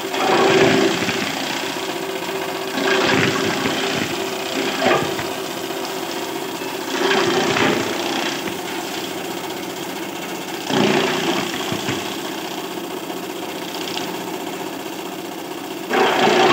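Chaff cutter driven by a 3 hp motor, running steadily, with a louder chopping surge every few seconds as green fodder stalks are fed into its blades.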